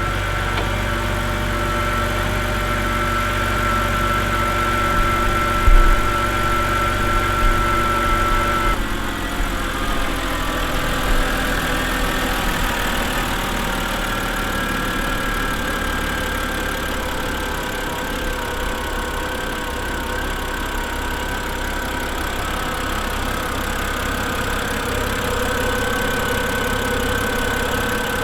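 BMW N52 inline-six idling after a cold start, with a light valve-train tick from the hydraulic lifters. The owner finds the tick much reduced after fresh Molygen oil, an engine flush and a lifter additive, though a little valve noise remains. The engine note shifts about nine seconds in.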